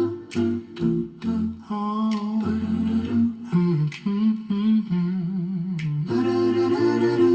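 Music played through an Mlove P1 portable Bluetooth speaker with an upfiring driver: a wordless, humming vocal line sliding between long notes over a low bass tone, with a few sharp percussion hits.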